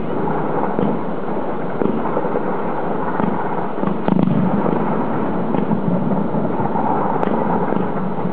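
Distant fireworks firing from the sides of a skyscraper: a continuous barrage of overlapping bangs and crackling with no break.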